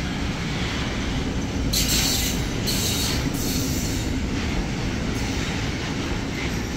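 Freight train wagons rolling past on the rails: a steady rumbling rush, with bursts of high-pitched screeching hiss from the wheels between about two and three and a half seconds in.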